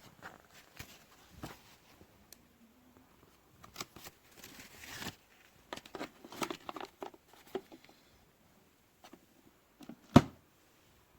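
Handling noises: scattered light clicks and rustling, with one sharp knock about ten seconds in.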